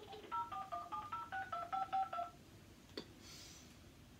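Uniden XDECT cordless phone handset sounding DTMF touch-tones as a number is keyed in: about ten short two-note beeps in quick succession, then a single click about three seconds in.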